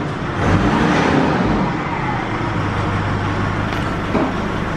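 Nissan YD25DDTi 2.5-litre turbodiesel running steadily, heard close at the tailpipe with the exhaust blowing out. This is an exhaust check: the exhaust spatters a white sheet held at the pipe with black soot specks.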